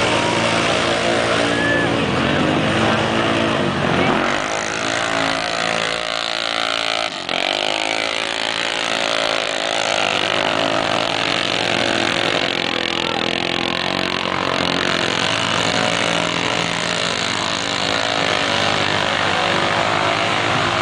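A motor vehicle's engine running under load, its pitch dropping twice in the first few seconds and then climbing again, over a steady noisy hiss.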